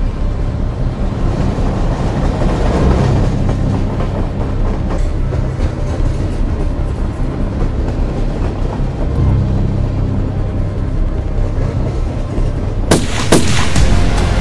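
Freight train rumbling past with a steady low rumble and rail clatter, mixed with background music. A few sharp bangs come near the end.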